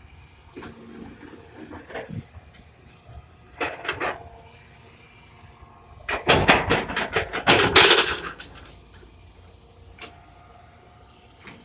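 John Deere excavator at work moving dirt: irregular clanks and scraping knocks, with the loudest, densest clatter from about six to eight and a half seconds in and one sharp knock near the end.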